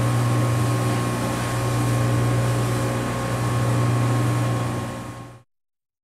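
Air-abrasion cabinet running: a steady low machine hum with a hiss of the abrasive air jet over it. It cuts off suddenly about five seconds in.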